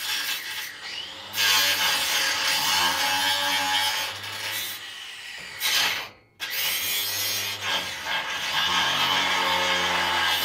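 Cordless angle grinder cutting into a seized chassis bolt whose captive nut spins freely because its weld has broken. The grinder runs in two long cuts with a short stop about six seconds in, its motor pitch sagging under load.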